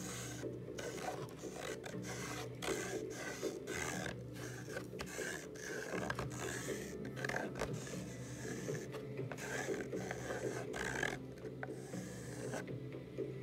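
Charcoal scraping and rubbing across canvas in repeated strokes, with short breaks between them.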